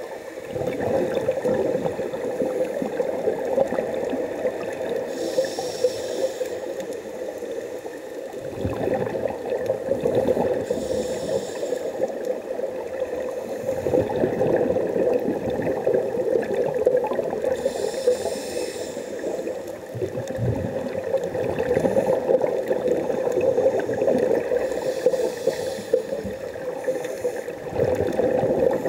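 Scuba regulator breathing heard underwater: bursts of exhaled bubbles gurgle out about every six or seven seconds over a constant wash of water noise.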